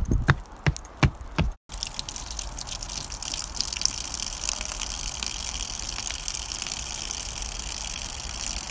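A few footsteps on a wooden garden edging board, then a thin stream of water pouring steadily into soil, a constant splashing.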